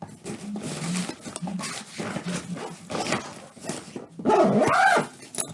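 Rustling and light knocking of accessories being packed back into a saxophone case. About four seconds in, a loud pitched call rises and falls for under a second.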